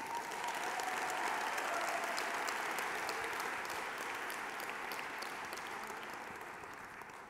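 Audience applauding, swelling within the first second and slowly dying away toward the end.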